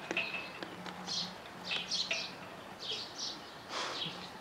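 Small birds chirping over and over in short high chirps, about two a second.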